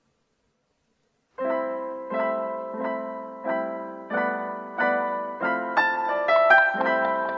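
Silence, then background piano music starts about a second and a half in: gentle chords struck about every two-thirds of a second, each fading away, with a short run of higher notes near the end.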